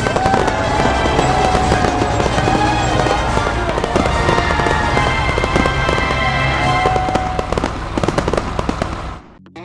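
A loud, dense run of crackling and popping, like fireworks, over music with gliding tones, cutting off suddenly near the end.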